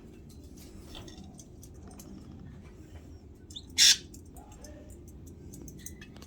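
Pet canaries chirping in many short, high calls, with one much louder, sharp burst a little under four seconds in.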